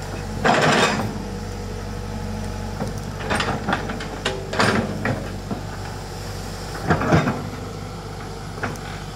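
Tracked excavator's diesel engine running steadily, with several short bursts of clatter and scrape as the steel bucket digs into and drops soil and stones.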